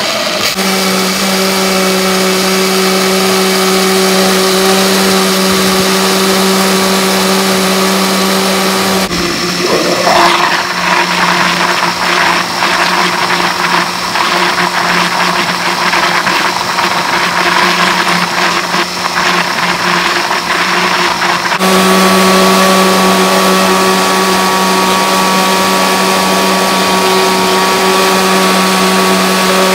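Countertop blender motor running steadily at high speed, liquefying cucumber, kiwi and water in a glass jar. The sound changes abruptly about nine seconds in, to a slightly lower hum with more churning noise, and back again about twenty-one seconds in.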